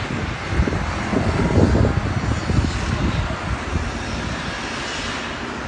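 Steady low rumble of city traffic engines, heaviest in the first couple of seconds and then settling to an even level.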